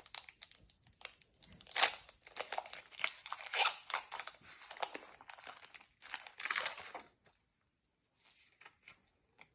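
Pokémon booster pack's foil wrapper being torn open and crinkled: a run of crackling rustles, louder about two seconds in and again around six seconds, stopping about seven seconds in.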